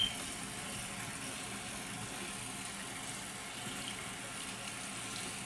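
Steady rush of running water from a bathroom tap, with a short knock right at the start.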